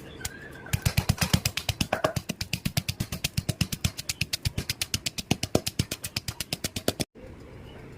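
Rapid, even chopping with a knife on a cutting board, about ten strokes a second, preparing chili paste ingredients; it stops abruptly near the end.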